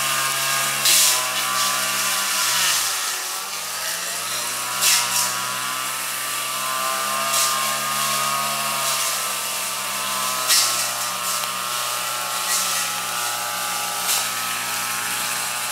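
Engine-driven brush cutter running at high speed. Its pitch sags about two to three seconds in, then climbs back, as the cutting head meets thick growth. Short sharp cracks come now and then as it strikes stems, the loudest about five and eleven seconds in.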